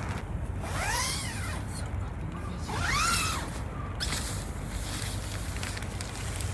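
A bird calls twice, each call a drawn-out note rising then falling in pitch, over steady wind noise.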